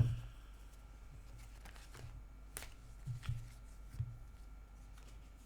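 Tarot cards being handled: one sharp tap at the start, then a few faint taps and rustles.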